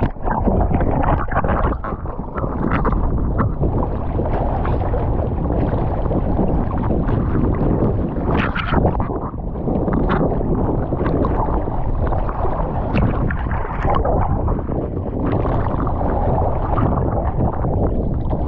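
Ocean water sloshing and splashing around a camera held at the surface by a swimmer in rough surf, with wind buffeting the microphone; sharper splashes break through every few seconds.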